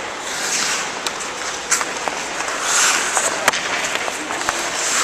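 Ice skate blades scraping and carving on rink ice, coming in surges of hiss, with several sharp clicks of hockey sticks and pucks on the ice.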